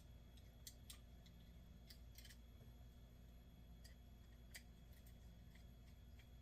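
Faint, scattered small clicks and ticks of a screwdriver and metal parts of an Ambassadeur 5501C3 baitcasting reel as its two screws are fitted, over a low steady hum.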